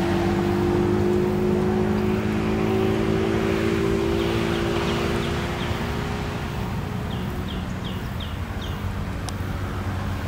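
A small engine running steadily, easing off a little after the midpoint. Twice a bird gives a quick run of short, high chirps.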